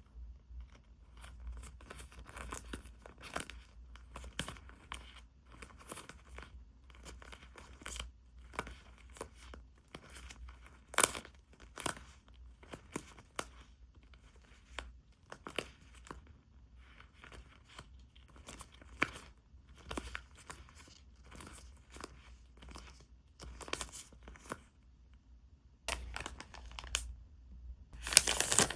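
Packaging being torn open and crinkled while a haul is unwrapped by hand: a run of short rustles and crackles, with two longer, louder tearing bursts near the end.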